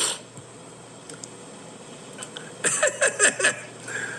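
A man's voice in a short burst about two and a half seconds in, over a steady low room hum.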